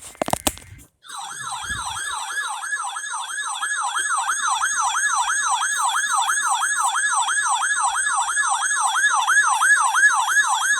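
Short burst of noise and clicks, then from about a second in an electronic siren-style alert tone that sweeps up and down about three times a second, steady and loud.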